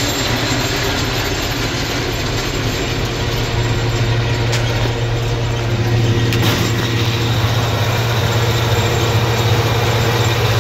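Tractor engine and pull-type forage harvester running steadily while chopping standing corn for silage, a steady low drone.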